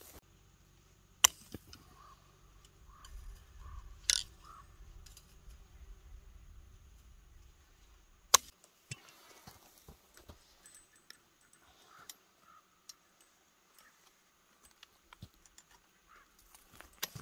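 Barbed wire and fencing pliers working against a steel T-post as the wire is twisted and pulled taut by hand. There are three sharp clicks, about one, four and eight seconds in, with fainter ticks after them. A low rumble under the first half stops about eight seconds in.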